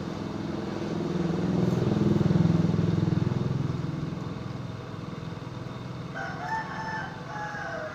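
A motor vehicle's engine passes by, growing louder to a peak about two and a half seconds in and then fading. Near the end a rooster crows once.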